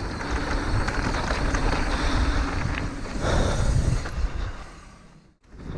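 Downhill mountain bike riding a trail: a steady rush of wind and tyre rumble over dirt and rock. It fades out about five seconds in.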